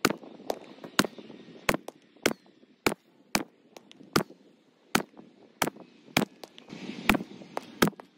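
Ruger PC Carbine, a semi-automatic pistol-caliber carbine, firing a rapid string of about thirteen shots, roughly one every half second to second.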